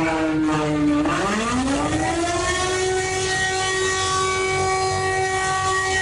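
Emergency alarm siren tone with the bass boosted: its pitch sags, dips about a second in, climbs back and then holds one steady, buzzy note.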